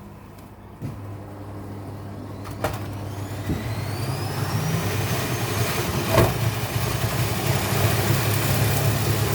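Vestel washing machine's drum motor spinning up, its whine rising in pitch and growing louder before levelling off, with a low hum underneath. Two sharp knocks come about a third and two-thirds of the way in, the drum banging in a spin that is unbalanced and foamed up.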